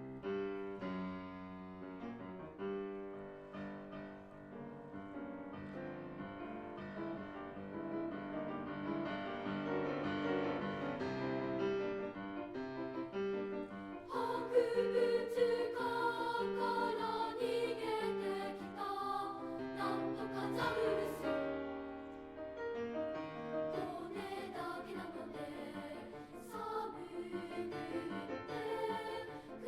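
Children's choir singing a Japanese choral song with piano accompaniment. The piano plays alone at first and the voices come in about halfway through.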